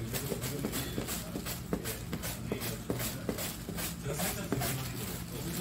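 Radish being julienned on a plastic mandoline slicer: rhythmic scraping strokes, about three a second, as the radish is pushed across the blades.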